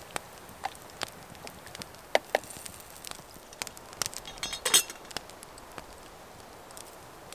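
Campfire crackling with scattered sharp pops, and a metallic clink with a brief ring a little under five seconds in as the metal cooking pot over the fire is handled.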